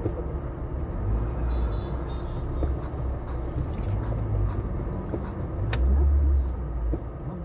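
Car being driven: steady low engine and road rumble. About six seconds in there is a sharp knock, and the rumble briefly swells.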